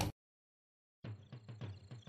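Background music cuts off abruptly just after the start, followed by about a second of dead silence. Then a quieter music track with a steady, even beat of roughly four strokes a second begins.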